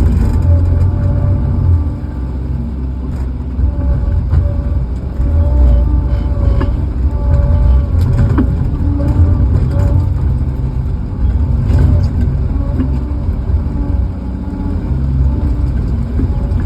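Heavy equipment engine, such as a tractor or loader, running steadily and swelling and easing with the load, with a few sharp knocks.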